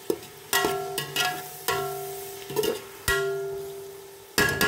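A spoon knocking against the sides of a large stainless steel cooking pot during stirring, about eight irregular knocks. Each knock sets the pot ringing with a clear bell-like tone that fades.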